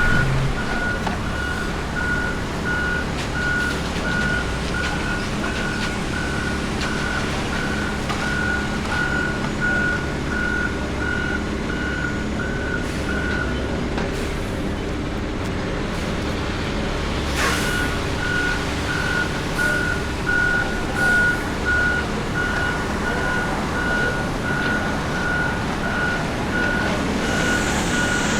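Concrete mixer truck's back-up alarm beeping about three times every two seconds over its running diesel engine, as the truck reverses. The beeping pauses for a few seconds about halfway through and starts again with a brief hiss.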